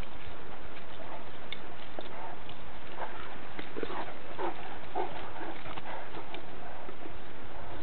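Great Danes at play, giving a few short yelping barks bunched together about three to five seconds in, over a steady hiss.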